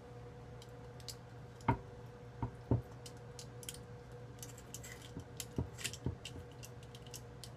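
Small knife cutting and prying at a channel catfish's skin on a wooden board: scattered small clicks and taps, with two louder knocks about a second apart near two seconds in. A steady low hum runs underneath.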